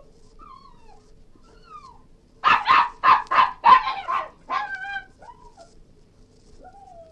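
Cairn terrier whining softly, then letting out a quick run of about six sharp barks about two and a half seconds in, followed by a higher yelp and more soft whines.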